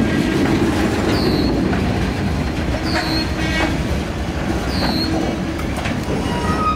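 Freight cars (gondolas and boxcars) rolling slowly on the rails with a steady rumble and a few clicks from the wheels. Short high wheel squeals come about every two seconds.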